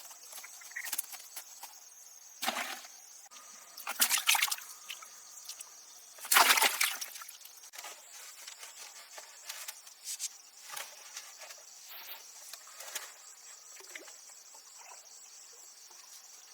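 Insects chirring steadily, broken by three short, louder noisy sounds about two and a half, four and six and a half seconds in, then a few fainter ones.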